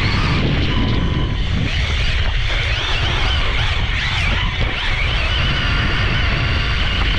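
LOSI Promoto MX RC motorcycle's brushless electric motor whining, rising and falling in pitch with the throttle, heard from a camera mounted on the bike over a heavy low rumble.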